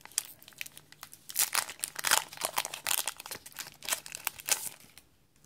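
Foil Yu-Gi-Oh! booster pack wrapper crinkling and crackling as it is torn open and the cards are pulled out of it, in irregular bursts that die away about five seconds in.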